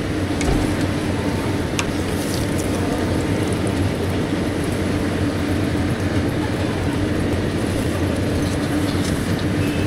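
A steady mechanical hum with a low drone under a constant rushing noise, and a few light clicks.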